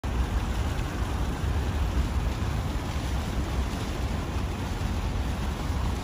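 Steady outdoor noise: a low, fluttering rumble with an even hiss over it, typical of wind buffeting the microphone by open water, with no distinct events.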